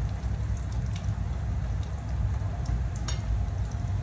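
Dried salted fish (tuyo) frying in hot oil in a pan: a steady sizzle with a few sharp pops, the clearest about three seconds in, over a steady low rumble.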